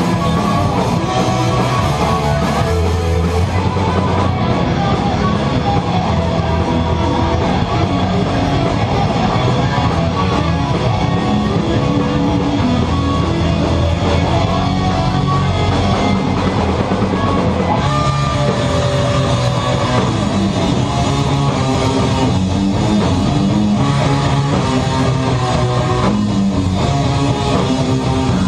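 Sludge metal band playing live: heavy distorted electric guitars and bass over a drum kit, a continuous loud passage.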